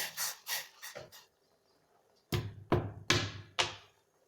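Four dull knocks in quick succession, about 0.4 s apart, near the middle, as of a utensil struck on a hard kitchen surface. A few short hissy rustles come before them, in the first second.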